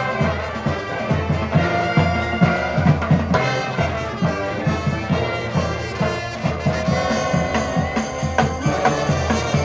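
Street brass band playing live: trumpets and trombones hold chords over a steady drum beat.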